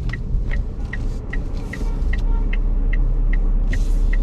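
Inside a VinFast VF5 electric car: the turn-signal indicator ticking evenly, about two and a half ticks a second, over a low rumble of road noise, with two brief hisses.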